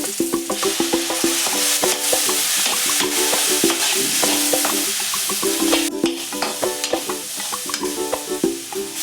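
Okra (ladyfinger) frying in a pan with a steady sizzle, under background music of quick plucked notes.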